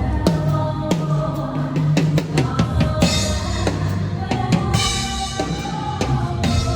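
Live band playing an instrumental passage, with the drum kit to the fore: regular kick and snare hits over a bass line and sustained pitched instrument chords, and cymbal crashes about three and five seconds in.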